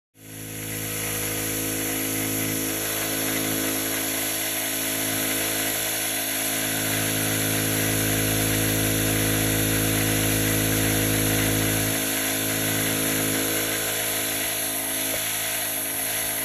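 A machine's motor running steadily without a break, with a constant hum and whine. It starts abruptly at the beginning.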